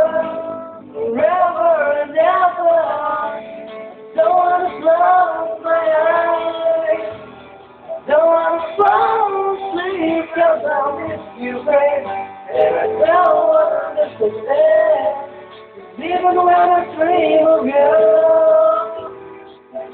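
Music: a high voice singing a slow ballad over a backing track, in phrases with long held notes.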